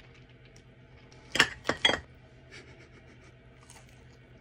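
Metal knife and fork clinking against a ceramic bowl while cutting food: three sharp clinks in quick succession about a second and a half in, with fainter small clinks around them.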